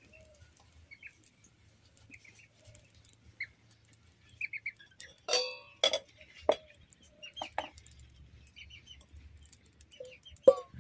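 Stainless-steel tumblers and utensils clinking as they are picked up and knocked together. Several sharp metallic clinks that ring briefly, bunched in the middle, with the loudest near the end.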